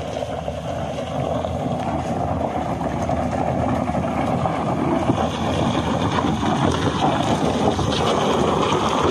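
SUV driving over a loose gravel and rock track toward the microphone, its engine running and stones crunching under the tyres, with wind buffeting the microphone. The noise grows a little louder as the vehicle comes close.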